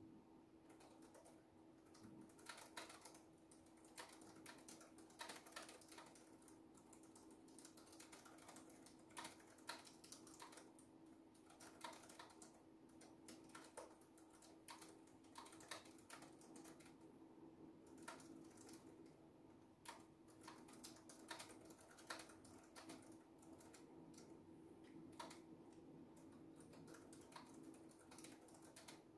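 Faint typing on a keyboard: irregular runs of soft keystrokes with short pauses, over a faint steady hum.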